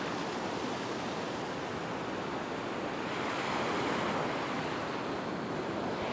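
Ocean surf washing in along the beach: a steady rush of waves that swells slightly in the middle.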